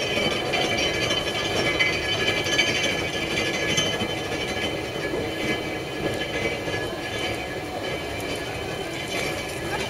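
A 1930-built steel railway turntable rotating, with a steady rumble from its running gear on the rail and a high, steady whine over it.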